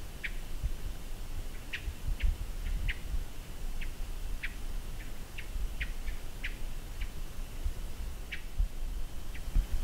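Short, high chirping call notes from a small woodland animal, repeated irregularly about once or twice a second, over a low rumble.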